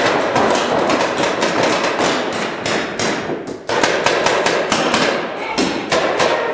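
Reball markers firing in rapid, overlapping volleys, a dense run of sharp pops and ball impacts on the inflatable bunkers, echoing in a large hall. There is a brief lull a little past halfway before the shots pick up again.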